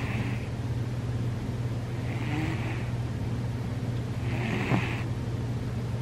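A sleeping cat snoring: three breathy, hissing snore breaths about two and a half seconds apart, over a steady low hum.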